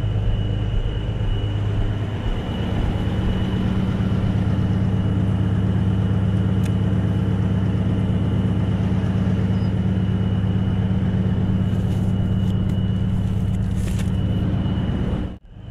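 A semi truck's diesel engine idling with a steady, even low hum and a high whine running above it, a few faint clicks near the end, then the sound cuts out abruptly just before the end.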